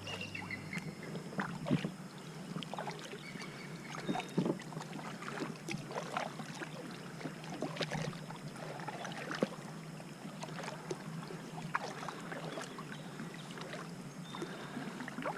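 Kayak paddle blades dipping and splashing in the water with dripping, in irregular strokes, as the kayak is paddled through shallow water.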